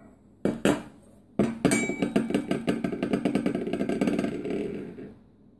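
Motor armature of a vintage Patton fan spun by hand in its freshly greased bearings, spreading the grease. Two knocks, then a rapid clattering whir that fades away over about three seconds.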